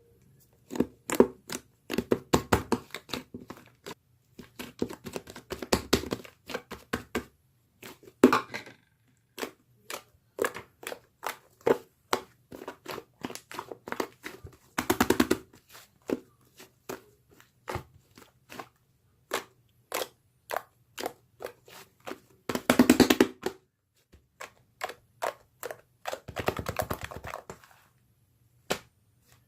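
Slime being squished and poked by hand, making a string of sharp pops and clicks with short runs of rapid crackling; the loudest run comes about two-thirds of the way through.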